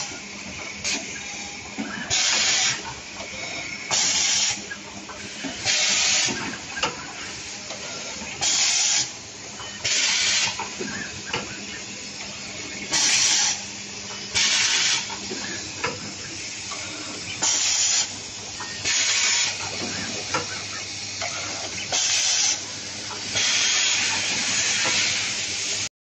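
Automatic wire cut-strip-crimp machine cycling: a loud burst of pneumatic air hiss about every one and a half to two seconds, with small mechanical clicks and a faint steady hum between the bursts.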